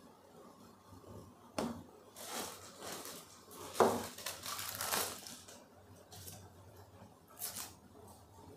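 Plastic accessory bags crinkling and rustling as bagged cables are picked up and handled. There is a sharp knock about one and a half seconds in and a louder clack near four seconds.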